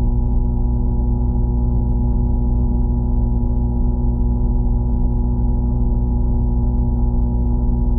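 A steady, unchanging low drone made of several sustained tones.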